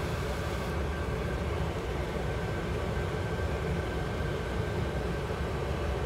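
Pet drying cabinet's blower running steadily while drying a freshly bathed dog: a constant rush of air with a deep rumble and a faint high steady tone.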